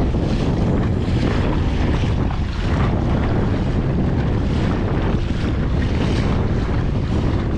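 Wind buffeting the microphone over steady water splash and rush as the kayak moves through choppy water.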